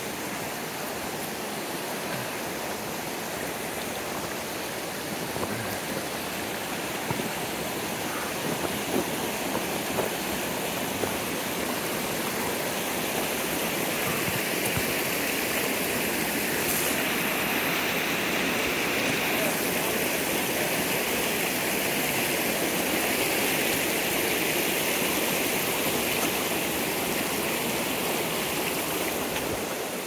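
Shallow mountain stream running over rocks: a steady rush of water that grows somewhat louder about halfway through.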